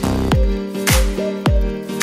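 Background electronic dance music with a steady beat, about two kick-drum hits a second over sustained synth chords.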